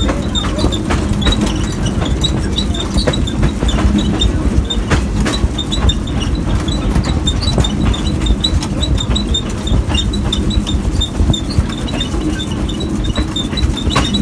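A train car rolling along the track: a steady low rumble with frequent clicks and knocks from the running gear, and short high squeaks recurring all through.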